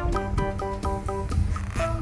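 Background music: a plucked-string melody in short, even notes, about four a second.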